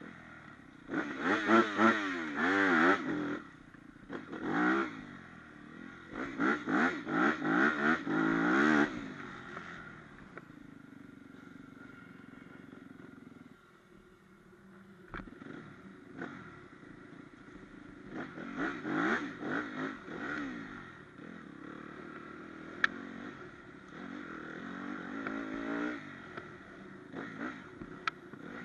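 Dirt bike engine revving hard and dropping back again and again as the bike rides, its pitch swinging up and down, with quieter stretches of low steady running in between. There are a couple of sharp ticks along the way.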